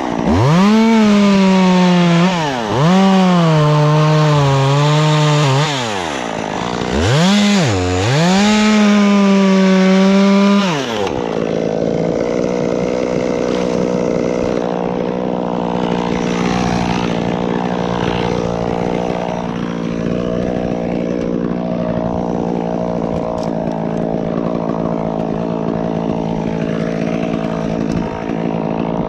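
Chainsaw at full throttle cutting dead wood, its engine pitch sagging under load and climbing again several times. After about eleven seconds it drops to a quieter, steady running.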